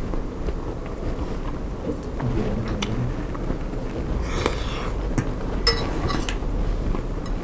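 Close-miked chewing of a bite of bakso meatball, with a few light clinks of a metal fork in the ceramic soup bowl a little after halfway, over a steady low hum.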